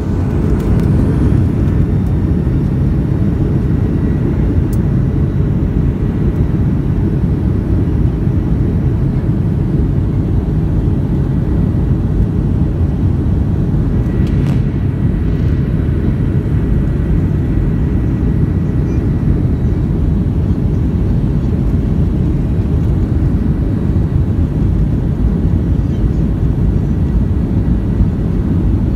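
Jet airliner's engines and cabin noise heard from inside the cabin: a loud, steady deep rumble that swells just at the start and then holds even as the aircraft moves along the runway for takeoff.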